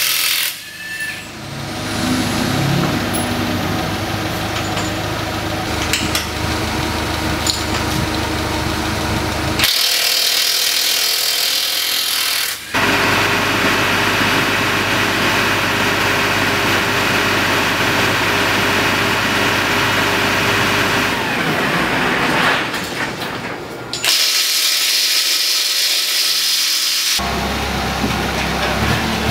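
Nissan forklift engine running steadily with a low hum. About ten seconds in, and again a little after twenty-four seconds, it gives way for about three seconds to a loud hissing noise.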